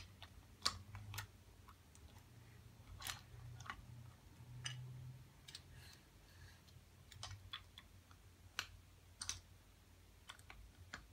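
Light, irregular clicks and clacks of wooden toy train cars handled on wooden track, their magnetic couplings snapping together, over a faint low hum.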